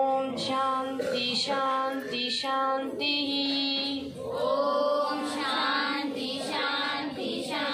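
A girl chanting a devotional mantra in sung, drawn-out notes.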